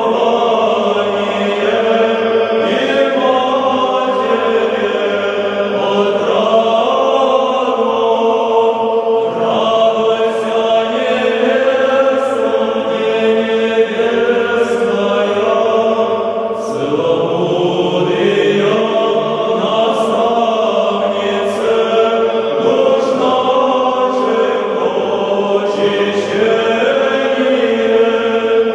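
Background music: a choir chanting slow vocal lines over a steadily held note.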